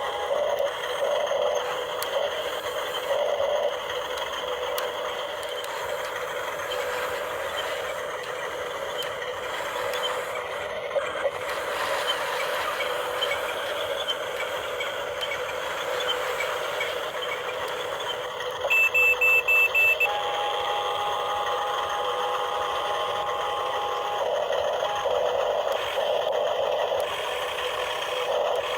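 Small electric motors and gearing of a toy RC excavator running with a steady whine. A quick run of about five electronic beeps comes about two-thirds of the way through, followed by a steady tone.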